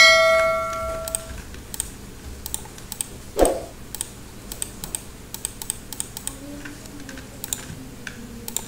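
Computer mouse or keyboard clicking at an unhurried pace, about one or two clicks a second, as faces are selected one at a time in a 3D modelling program. A short ringing chime sounds at the very start and fades over about a second and a half. A single dull thump comes about three and a half seconds in.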